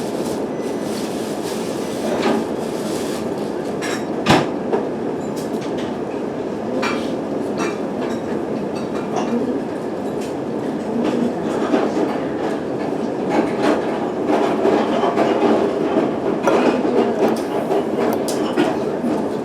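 Steady rumbling background noise with scattered clicks and knocks, and one sharp knock about four seconds in.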